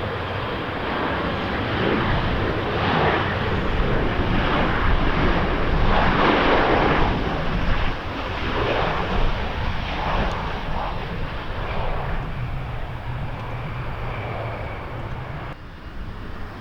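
Fixed-wing aircraft engines running as a plane passes close by, the noise swelling to its loudest about six or seven seconds in and then slowly fading.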